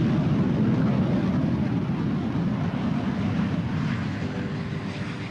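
Airplane flying overhead, a loud rushing engine noise that slowly fades as it passes and moves away.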